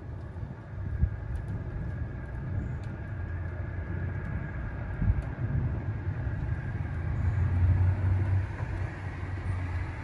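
Distant thunder rolling as a long, low, continuous rumble that swells to its loudest near the end.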